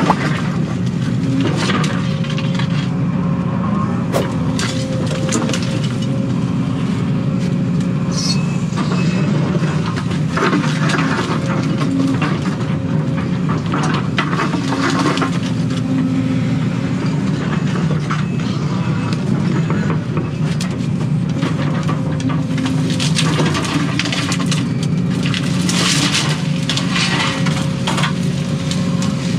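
Excavator's diesel engine running steadily, heard from inside the cab, with scattered cracks, snaps and knocks as the bucket digs out roots and tears through brush.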